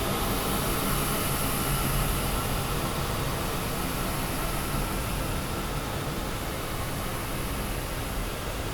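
Experimental noise-drone music: a dense, steady wash of hiss and low rumble with no beat or melody, slowly getting quieter.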